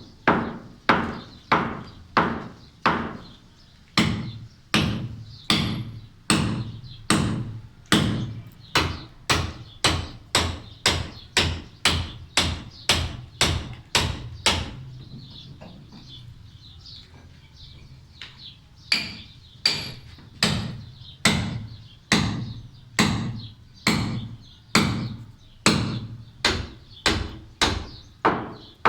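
Hand hammer blows chipping away the corner of a concrete slab: a steady run of sharp ringing strikes, about one and a half a second, with a pause of a few seconds midway before the hammering resumes.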